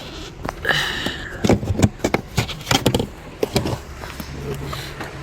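Clicks, knocks and a short scrape of hands twisting and working loose the fuel pump access cover on a Mercedes-Benz S500 fuel tank.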